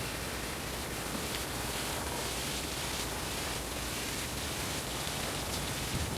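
Water jet spraying during a wash service of a package air conditioner: a steady, even hiss.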